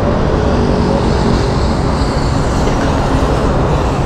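Steady city traffic noise at an intersection: buses and a car driving past, with a constant low rumble.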